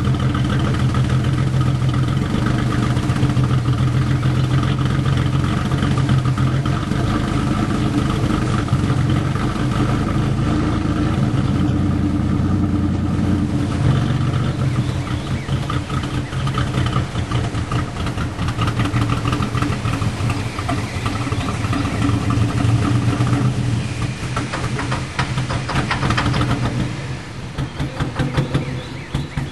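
A 2000 GMC Sonoma's 4.3 Vortec V6 running steadily through a straight y-pipe with no catalytic converter and a Spintech Pro Street muffler, burning off Seafoam and blowing thick white exhaust smoke. Near the end the sound drops in level and turns uneven and choppy.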